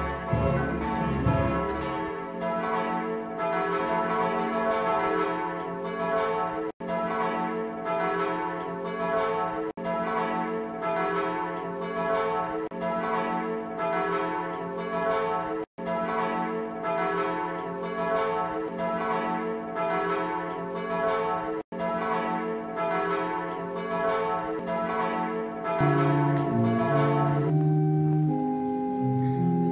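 Church bells ringing a full peal, several bells struck over and over in steady overlapping succession. About four seconds before the end the bells give way to slow music with long held notes.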